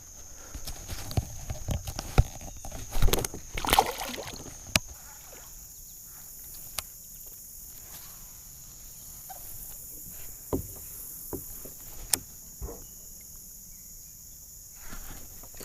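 Knocks, clatter and light water sloshing around a kayak: a busy cluster in the first five seconds, then a few single knocks spaced apart. Underneath is the steady high chirring of crickets.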